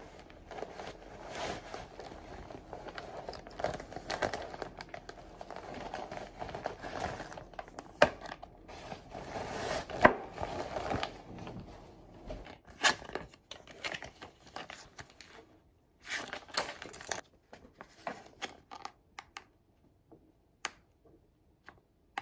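Rustling and crinkling of a cloth drawstring shopping bag being opened and unpacked, then of a plastic soup pouch being handled, with a few sharp clicks and taps. Dense for the first half, then sparser crinkles that thin out near the end.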